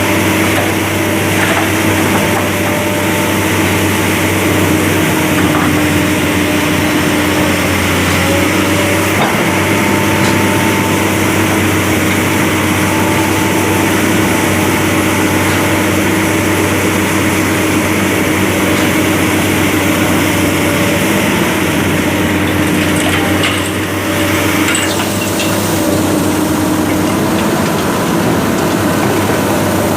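Heavy diesel machinery running steadily under load, a continuous engine drone with a constant hum, dipping briefly about three quarters of the way through.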